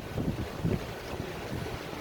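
Strong storm wind buffeting the microphone, with a couple of low gusts in the first second, then easing to a steadier rush.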